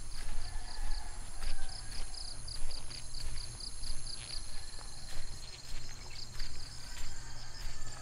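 Insects chirping in a fast, even pulse of about five chirps a second over a steady high buzz that stops about five seconds in. Footsteps on a dirt path sound along with them.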